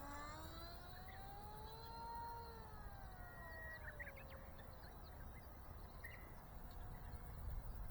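Whine of a small electric RC plane's brushless motor and 3-inch propeller, rising in pitch for about two seconds and then falling away over the next three.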